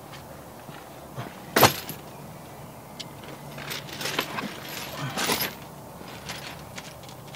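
Metal hand tools clinking and rattling while working on a bolt under the dashboard, with one sharp clank about a second and a half in and two short bursts of rattling later.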